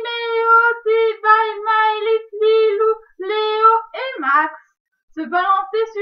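A woman singing a French children's song in short phrases, mostly held on one high note, with a brief pause near the end.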